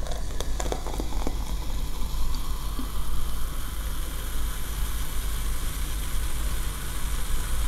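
Cola fizzing in a glass: a steady hiss of bursting bubbles, with a few small clicks in the first second or so, over a steady low hum.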